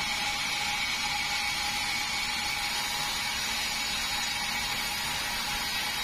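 Vertical band sawmill running and ripping a red meranti board: a steady, even hiss of the cut with a high whine from the blade.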